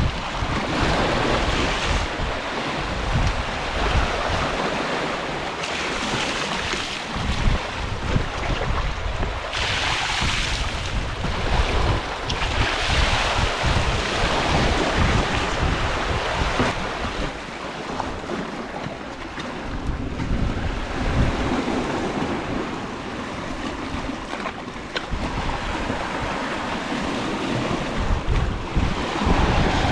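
Strong wind buffeting the microphone in gusts, with sea waves washing against the shore rocks in repeated surges.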